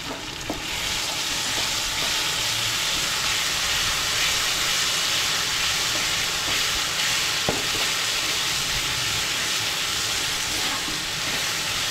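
Onions and ground spice paste sizzling steadily in hot oil in a nonstick wok while a spatula stirs and scrapes through it: the masala being sautéed (kosha) for a curry. The sizzle grows louder about a second in.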